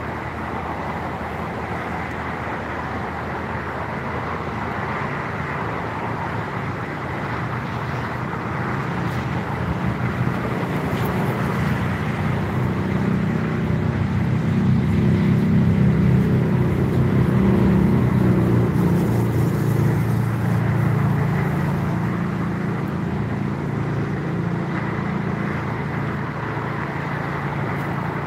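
Steady traffic noise, with one vehicle's low engine rumble building about ten seconds in, loudest in the middle, and fading again as it passes.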